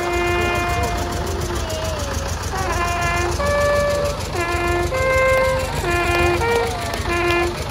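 A long natural horn playing a slow melody of held notes that jump between a few pitches of its overtone series, several notes in turn. Beneath it, the low steady running of the tractor engine pulling the float.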